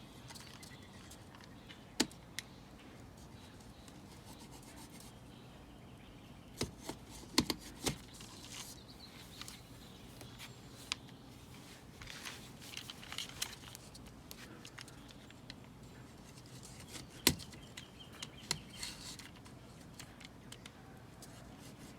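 Spline roller pressing a rubber spline into the groove of an aluminium-style screen frame: faint, irregular rubbing and scraping, with a few sharp clicks, the loudest about 2, 7 and 17 seconds in.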